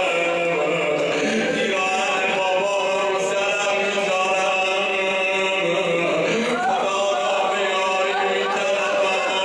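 A man chanting a Persian mourning elegy (noha) for Fatima Zahra in long, held notes.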